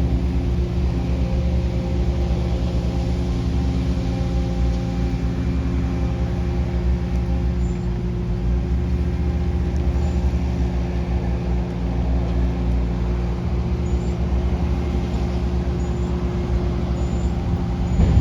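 Skid steer engine running steadily at an even speed, a low, constant drone.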